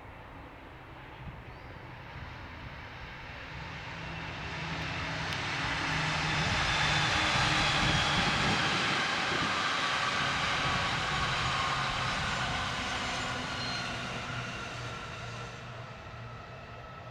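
E531 series electric train passing at speed: the rush of wheels and running gear swells over a few seconds, peaks around the middle, then fades as it goes away, with a few steady whining tones over it.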